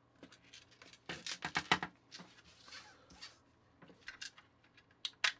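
Clicks and taps of a plastic toy cap gun being handled and taken apart, with small screws set down on a hard tabletop: a quick run of clicks about a second in and a sharp tap near the end.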